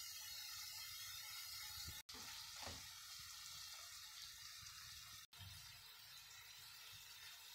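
Ground beef frying in a pan: a faint, steady sizzle that drops out for an instant twice where the footage is cut.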